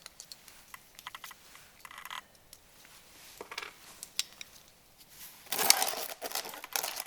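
Small metal parts and tools clinking and clicking as they are handled, with one louder scraping rattle lasting under a second about five and a half seconds in.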